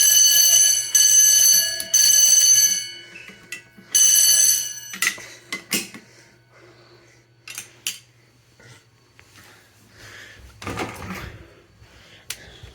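Fire alarm bell ringing in a loud stretch of about three seconds, pausing for a second, ringing once more for about a second, then stopping about five seconds in. A few scattered clicks and a brief rustle follow.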